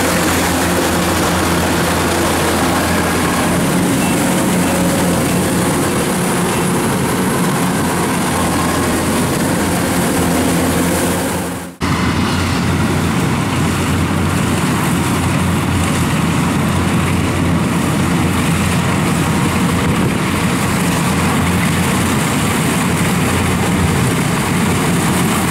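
Kubota rice combine harvester's diesel engine running steadily while the machine cuts through standing rice. The sound drops out for an instant about halfway through, then runs on.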